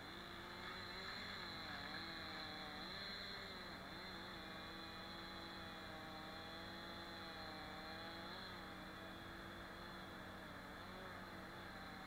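Chainsaw running at high revs and cutting, heard faintly, its pitch sagging and recovering several times as the chain bites into the wood.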